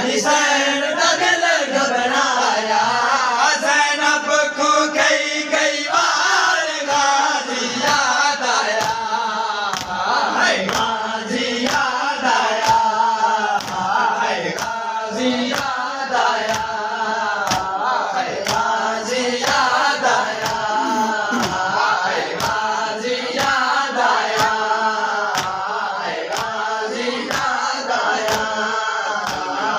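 Men's voices chanting a nauha, a Shia mourning lament, together, with the regular slaps of matam (hands beating on chests) keeping time a little faster than once a second.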